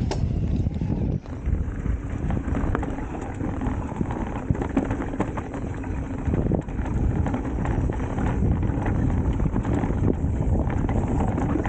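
Electric mountain bike riding down a dirt trail: wind buffets the camera microphone over the noise of the tyres on the ground, with many small knocks and rattles from the bike over the bumps.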